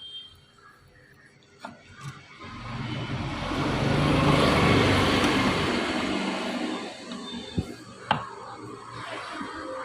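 A road vehicle passing by, its engine and tyre noise swelling to a peak midway and fading away. A few light metallic clicks from tools come before and after.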